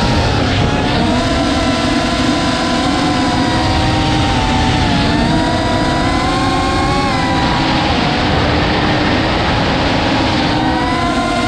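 FPV racing quadcopter's motors whining, several tones rising and falling together with the throttle, over heavy wind rush on the onboard camera's microphone.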